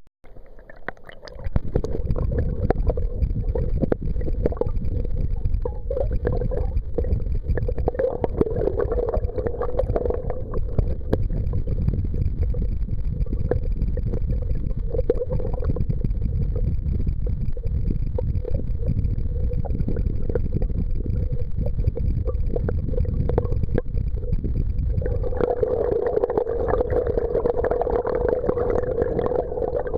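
River current rushing over an underwater camera: a continuous low rumble and gurgle, with a steady mid-pitched hum that grows louder about 25 seconds in.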